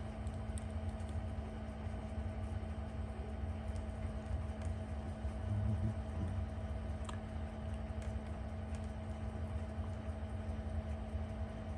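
A steady low hum over boosted recording noise, with a few faint scattered ticks of metal tweezers on small watch parts as the movement is taken apart.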